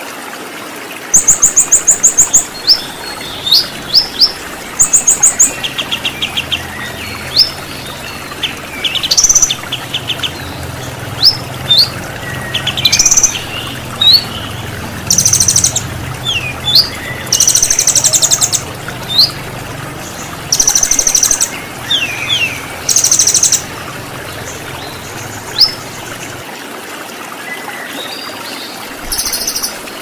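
Small songbirds chirping and singing over the steady rush of a waterfall: fast high trills, short quick whistles, and several loud buzzy bursts in the middle. A low hum runs under much of it.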